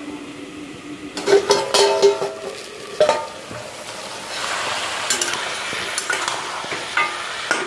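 A metal lid lifted off an aluminium kadai with a ringing clang about a second in. Then a spatula scrapes and knocks against the pan while spiced meat sizzles in oil as it is stirred.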